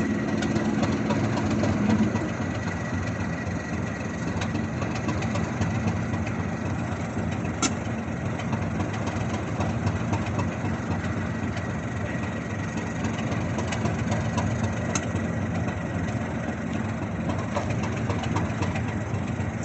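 Class 73 electro-diesel locomotive idling with a steady low running hum and a thin high whine. The hum is a little louder for the first couple of seconds, and two brief clicks come in the middle.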